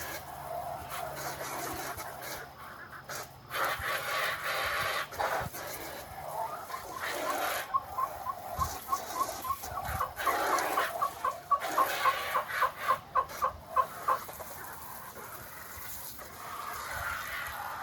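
Chickens clucking: a long run of quick, evenly spaced clucks, about three a second, starting about a third of the way in and stopping about three-quarters through.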